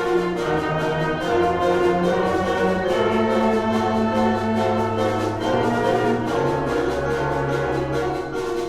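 Middle school concert band playing a film-score passage: held, brass-heavy chords over a bass line that steps to a new note every few seconds.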